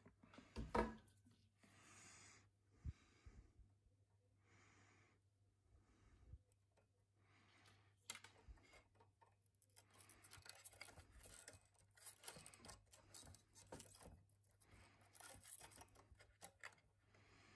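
Faint scraping and ticking of a small hand driver working a screw at a terminal inside the power supply chassis, busier in the second half, with one sharp knock under a second in.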